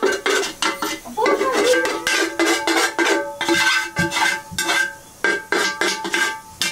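Steel pots and a steel plate clinking and scraping together in quick, uneven strikes. Each strike sets the metal ringing at the same few pitches.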